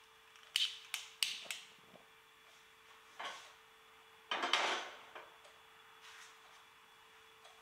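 A stick gas lighter clicking about four times at a gas stove burner, then a heavy frying pan knocking and scraping on the stove's metal grate. The pan clatter is loudest about four and a half seconds in.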